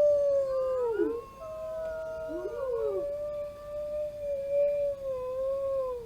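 Several wolves howling together: long, steady howls overlap, with some voices sliding down and back up in pitch, and the chorus cuts off abruptly at the end.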